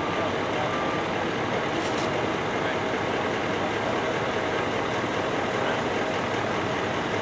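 Steady engine and traffic noise from stopped trucks idling on the road. A vehicle's reversing alarm beeps once, about a second in.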